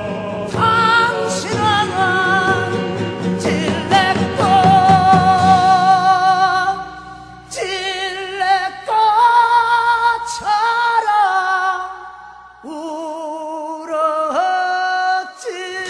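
A male singer in the Korean sori style sings a slow song, holding several long notes with a wide, heavy vibrato and pausing briefly between phrases. Live accompaniment with acoustic guitar plays under him.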